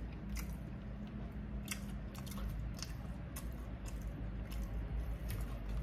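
Close-up chewing of a mouthful of crispy fried chicken fillet and mac and cheese, with small wet mouth clicks and smacks about twice a second.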